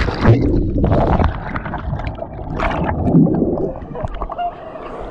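Water splashing, sloshing and gurgling close to the microphone just after people jump into a deep swimming hole, with scattered sharp splashes and knocks.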